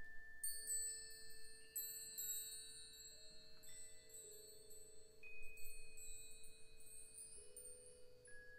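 Percussion ensemble playing soft, sparse notes on mallet keyboard instruments, bell-like and high, each struck note ringing on for several seconds and overlapping the next.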